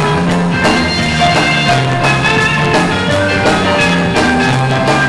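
Jazz music played on an electric keyboard with a steady drum beat.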